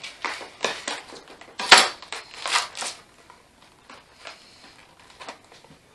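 Chef's knife cutting through the plastic film on a tray of mushrooms, then the film crinkling and the plastic tray clicking as hands pull it open. The crackles are loudest in the first three seconds, with one sharp crack just under two seconds in, and fainter handling after that.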